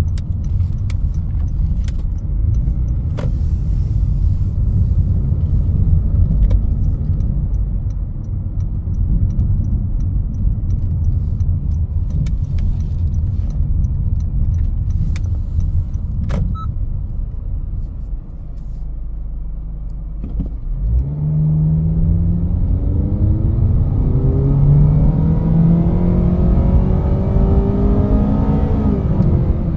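Road and tyre rumble from a 2021 Honda HR-V Sport AWD on the move. After a short lull about two-thirds of the way in, the car's four-cylinder engine rises steadily in pitch as it accelerates.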